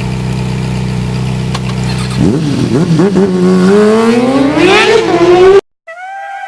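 A vehicle engine runs at a steady pitch, then revs up with its pitch climbing over about three seconds. The sound cuts off abruptly near the end, and a steady high tone begins.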